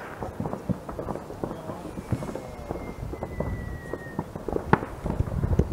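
New Year's Eve fireworks going off across a town far below: a constant scatter of distant pops and bangs. A thin whistle falls slightly in pitch through the middle, and one sharper crack stands out near the end.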